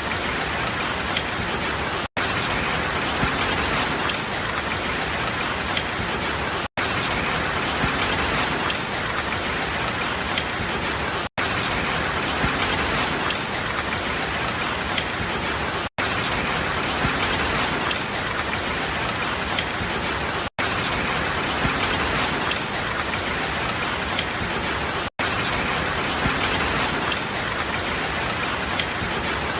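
Steady rain falling, an even hiss with fine ticks of individual drops. The sound is broken by a very brief dropout to silence about every four and a half seconds.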